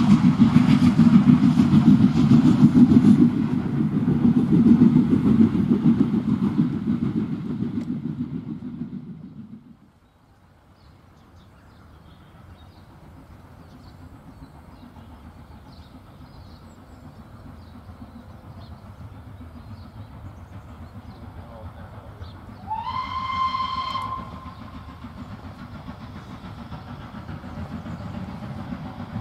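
Steam train running away from the listener, its heavy rumble fading out over several seconds. After a cut, Southern Railway S15-class 4-6-0 No. 847 gives a single steam-whistle blast that slides up and then holds for about a second, and the sound of the train starts to grow near the end as it comes out of the tunnel.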